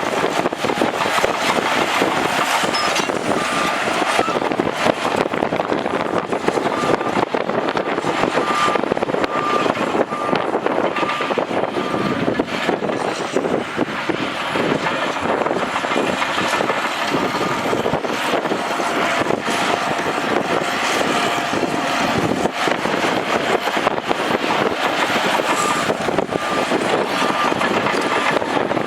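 Bulldozer working: the diesel engine runs under load and the tracks clatter steadily. A reversing alarm beeps at an even pace about eight seconds in, and again near the end.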